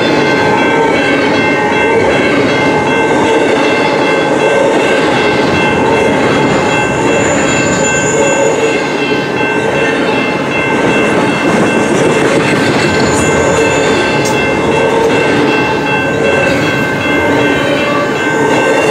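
Long double-stack container train rolling past, a steady loud rumble and clatter of wheels on the rails, with several thin high ringing tones held steadily throughout.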